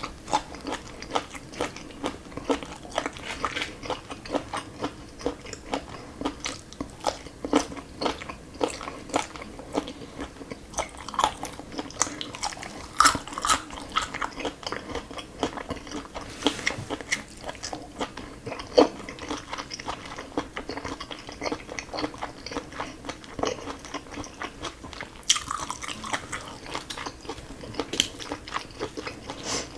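Close-miked eating sounds: steady chewing with a dense run of short clicky mouth sounds, a few each second, and now and then a louder bite.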